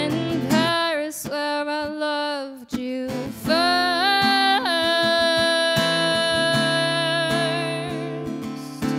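A woman singing over a strummed acoustic guitar in a live solo performance: a short sung phrase, then one long held note through most of the rest, stepping up slightly about a second after it starts, with steady strumming underneath.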